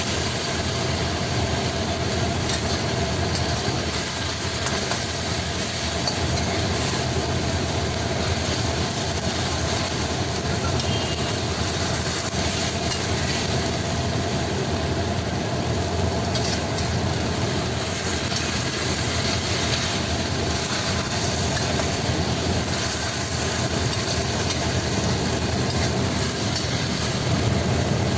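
Steady rushing noise of a stir-fry cooking over high heat in a pan, with a faint steady hum underneath.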